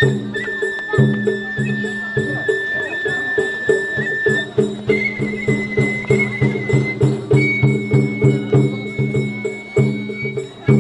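Japanese festival hayashi music: a bamboo flute holds long high notes, stepping up in pitch about halfway through, over a steady driving rhythm of drums and clanging percussion.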